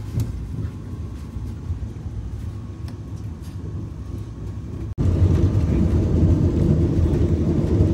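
Running noise of the Vande Bharat Express train heard on board: a steady low rumble. About five seconds in, the sound cuts abruptly to a louder, deeper rumble.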